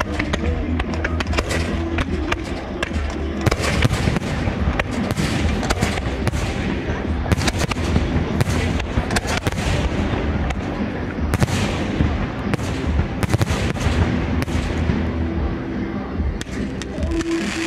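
Aerial fireworks shells bursting in quick succession, a string of bangs and crackles that thickens into a dense barrage from about three and a half seconds in.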